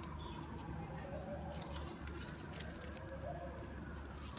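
Outdoor street ambience: a steady low rumble of distant traffic under a faint siren wail that slowly falls and rises, with a few light clicks near the middle.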